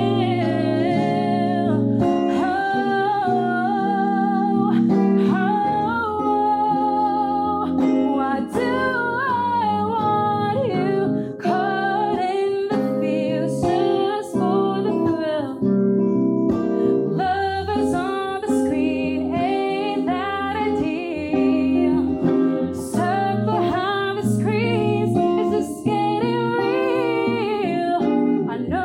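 A woman singing a wavering, vibrato-laden melody over guitar chords in a live song performance.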